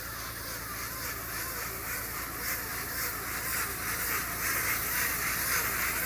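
Tractor and round baler-wrapper combination working a haylage bale: a steady low engine drone with a quick, evenly repeating mechanical sound over it.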